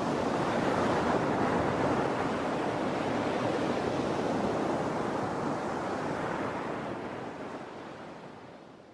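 Sea waves washing in a steady surf, fading out over the last few seconds.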